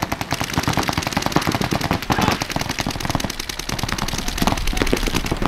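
Paintball markers firing in rapid, overlapping strings of shots during a match, making a dense, continuous crackle of pops.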